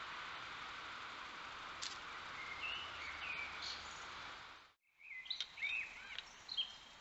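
Wild birds chirping over a steady background hiss, a few short calls at first, then a cut about five seconds in followed by several louder, sharper calls.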